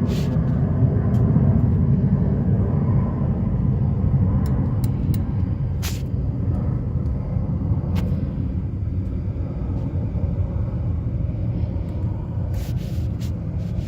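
2009 Ford Mustang on the move: a steady low rumble of road and car noise, with a few short sharp clicks or chirps from the rear brakes, mostly about halfway through and near the end. The owner thinks the noise comes from loose brake hardware that isn't clipped in.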